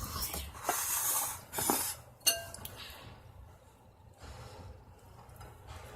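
Slime being scraped and moved onto a plate, with rustling scrapes and a sharp clink of dishware a little over two seconds in, then quieter handling.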